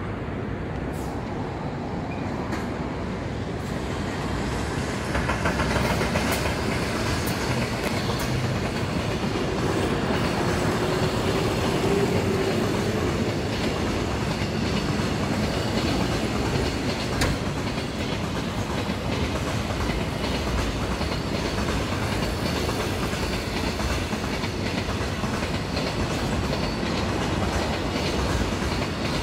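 Container freight train passing close by: a steady rumble with wheels clicking and clattering over the rail joints, swelling over the first few seconds and then holding.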